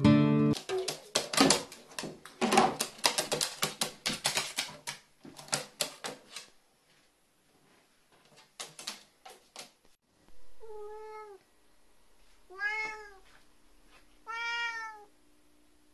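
A crow pecking and tapping its beak at a plastic drink bottle, a rapid run of sharp clicks and knocks that stops for a moment and comes back briefly. Then a cat meows three times, each call rising and falling, asking for a closed door to be opened.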